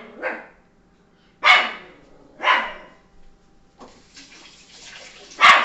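A pet dog barking in single barks: four barks, the second and third about a second apart and the last, near the end, the loudest.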